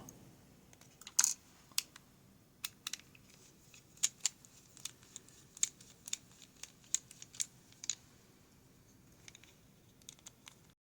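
Small sharp metal clicks and taps of a pin-tumbler lock cylinder and tools being handled while the lock is taken apart, about a dozen irregular ticks that stop abruptly just before the end.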